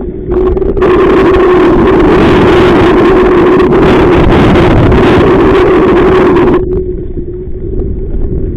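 Strong wind blasting across the microphone, very loud. It eases for about two seconds near the end, over a steady low hum.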